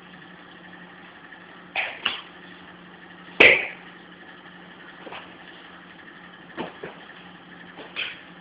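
Boxing-gloved punches landing during sparring: about seven short, sharp smacks, the loudest about three and a half seconds in, over a steady low hum.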